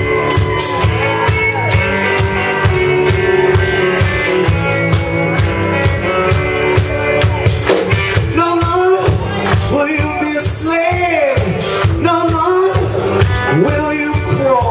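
Live rock band playing loudly on drum kit and electric guitars, with a man singing into a microphone from about eight seconds in.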